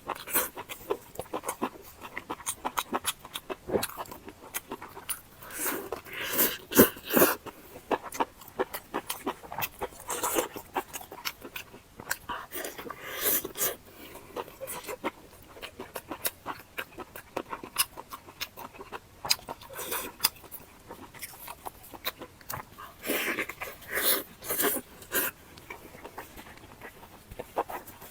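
Close-miked eating of a steamed bun: wet chewing and lip-smacking, irregular clicks with louder bursts about a quarter of the way in and again near the end.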